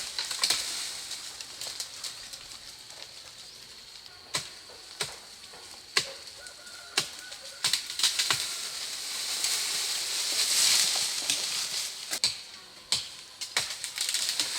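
Lychee branches and leaves rustling as they are handled and pulled down, with sharp snaps of twigs or stems about once a second; the rustling swells and is loudest in the middle.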